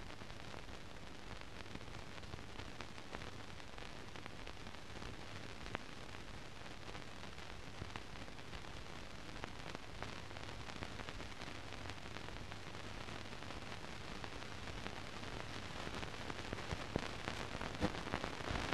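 Hiss and crackle of a silent film transfer with no soundtrack, over a steady low hum. The crackle grows denser toward the end.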